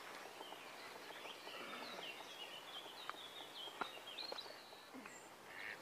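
Faint birdsong over quiet outdoor background: a run of short, high chirping notes through the middle, with a few soft clicks.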